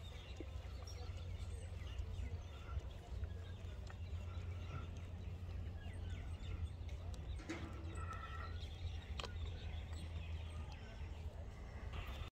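Outdoor background: a steady low wind rumble on the phone's microphone, with faint, scattered bird chirps and a few light clicks.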